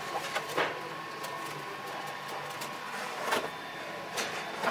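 Hollow 3D-printed PLA fuselage of a large RC plane handled on a tabletop, knocking and scraping against it, with a few separate sharp knocks over a steady background hum.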